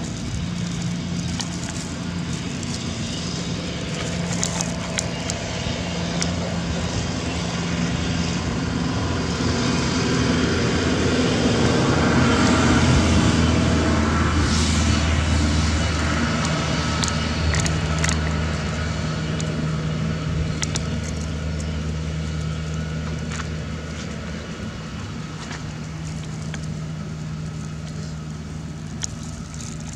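A motor engine humming steadily, growing louder to a peak around the middle and then fading, with a few small clicks and taps over it.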